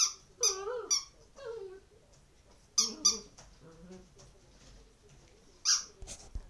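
Rubber squeaky toy doll squeaked in short sharp bursts as a dog bites and squeezes it, about six squeaks in clusters. In the first second or so the dog sings along with a wavering, gliding whine.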